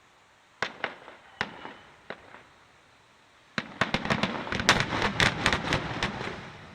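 Fireworks recorded on a smartphone: a few single sharp bangs spaced out over the first two seconds, then about three seconds of dense crackling, many quick pops close together, fading away.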